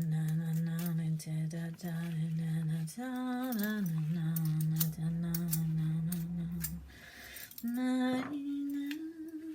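A person humming a slow tune in long held notes, gliding from one to the next and pausing briefly about seven seconds in. Light scraping and clicking of vegetables being peeled runs underneath.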